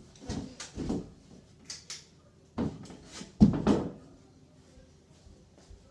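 Knocks and thumps of a person climbing on a kitchen chair and pulling the light chain on a Clarkson ceiling fan, the loudest thump about three and a half seconds in. Under them the fan runs on high with a faint steady hum.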